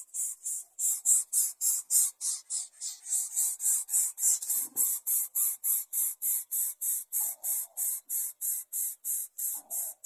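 Greater coucal nestlings hissing in a fast, even rhythm, about four short hisses a second, typical of chicks begging for food from the adult.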